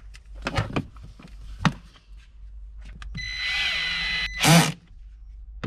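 Cordless drill-driver driving a screw into a plastic floor trim panel: a steady whine for about a second, then a short, louder burst as it stops. Before it, a few light knocks as the plastic trim is set in place.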